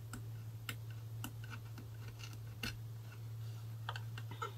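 Faint, irregular small clicks and scrapes of tools picking at a label stuck over a chip on a UPS front-panel circuit board, over a steady low hum.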